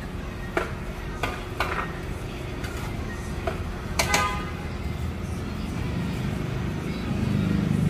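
Scattered metallic clinks and knocks of kitchen pots and utensils, several in the first half and the loudest about four seconds in, over a steady low rumble of kitchen background noise.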